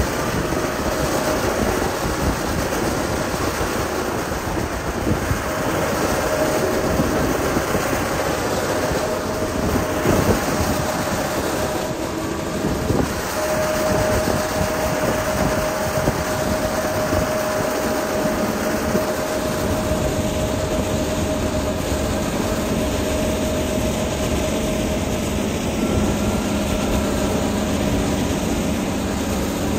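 Heavy diesel machinery, a motor grader at work spreading gravel, running steadily with a dense, even rumble. A steady whine comes in about six seconds in and is strongest from about 13 to 20 seconds.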